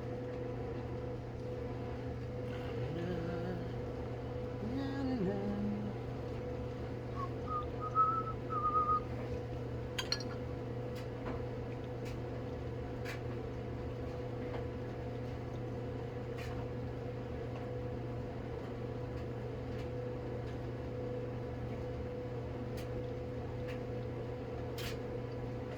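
A steady electrical hum throughout, with a few brief whistled notes about eight seconds in and scattered faint clicks.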